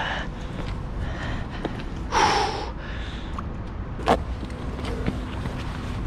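A landing net being worked through canal water at a stone edge, over a steady low rumble. There is a short rushing splash about two seconds in and a sharp knock just after four seconds.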